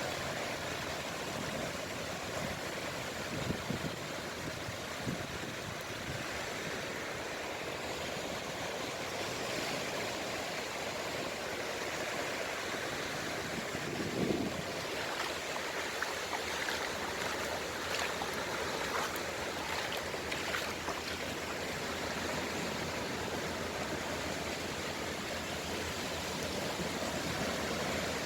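Sea waves washing on the shore as a steady rush of surf, with a few brief low thumps, the clearest about fourteen seconds in.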